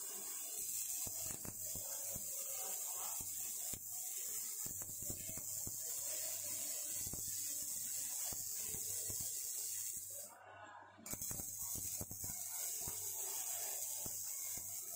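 Faint shipyard work ambience: a steady high hiss with scattered light knocks and clanks and faint distant voices, dropping away briefly about ten and a half seconds in.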